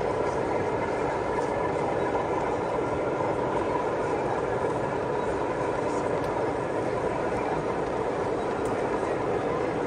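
Steady hubbub of a crowded exhibition hall: many voices talking at once with no single clear speaker, the babble even in level throughout.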